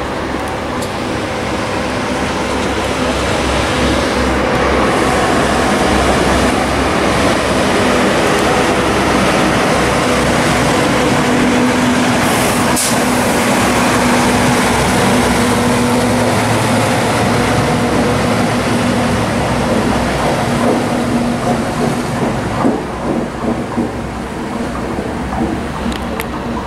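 Diesel-hauled Network Rail weedkiller train passing close by: the locomotive's engine drones steadily over the rumble of wheels on rail. It builds to its loudest in the middle, then eases off in the last several seconds with irregular clanks as the train moves away.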